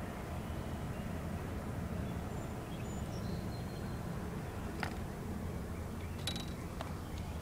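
Steady low outdoor rumble with a few faint high calls. In the second half come several short sharp clicks and knocks as the handheld iPod is swung round.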